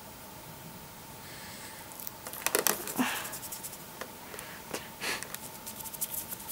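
Plastic packaging and sticky tape crinkling and clicking under hands pulling them apart, in scattered short bursts from about two seconds in; before that only faint room hum.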